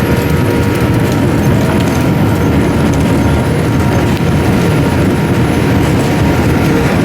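Cabin noise inside a Boeing 787-8 airliner: the jet engines running with a loud, steady rumble.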